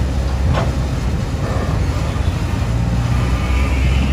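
Diesel engine of a Hyundai crawler excavator running with a steady low rumble as the machine works its boom on a sand pile.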